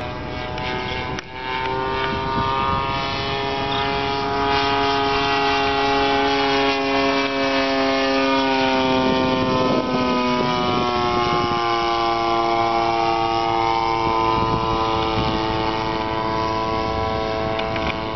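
Two-stroke 60cc RCGF gasoline engine of a large radio-controlled P-51 Mustang model running in flight. It gives a steady buzzing note whose pitch drifts gently up and down, with a brief dip in loudness about a second in.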